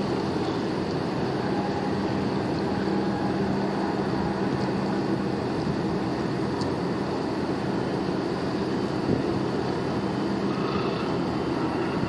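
Boat engine running steadily: an even low drone with a constant hum, and some water and wind noise under it.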